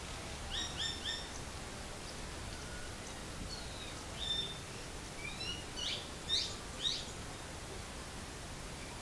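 Birds chirping: three quick short calls about half a second in, then scattered short chirps and two sharper, louder calls a little past the middle, over a steady background hiss.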